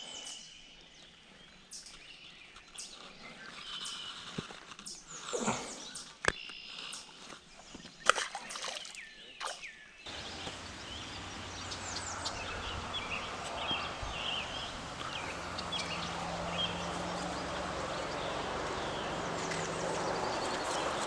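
Outdoor ambience with birds chirping. In the first half there are scattered clicks and rustles of handling a caught fish and lure. After a cut about ten seconds in, a steadier, fuller background of outdoor noise and birdsong.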